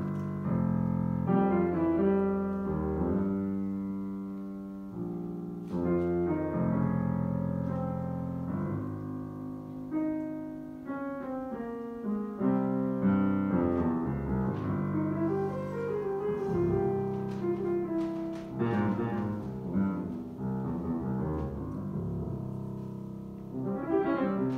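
Grand piano played in a live jazz improvisation: sustained chords over deep bass notes, with quicker melodic runs above.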